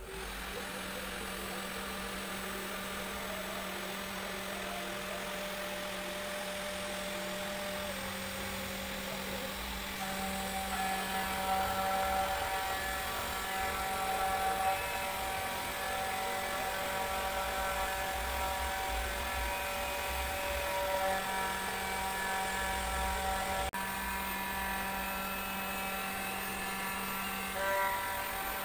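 DIY CNC router's 500 W spindle running steadily with a 4 mm single-flute carbide end mill cutting into hardwood to engrave lettering. A higher, shifting whine joins about ten seconds in as the cut gets under way.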